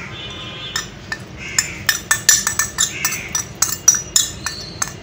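A steel spoon clinking and tapping against a china plate and a metal kadai, a quick irregular run of sharp clinks with a brief metallic ring, as spice powders are knocked off into the pan.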